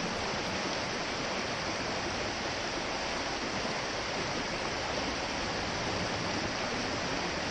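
Steady rushing of a mountain stream's water.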